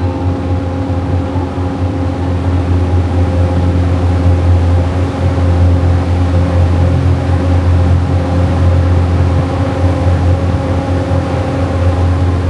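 River cruise boat's engine running steadily, heard from on board: a deep, even drone with a few steady higher hums over it.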